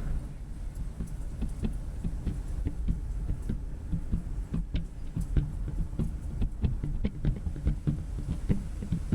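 Irregular soft low thumps and light clicks, several a second: handling and movement noise on the microphone.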